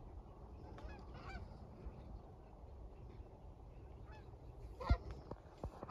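Canada geese honking on and off, a few calls about a second in and a louder honk near the end, over a steady low rumble.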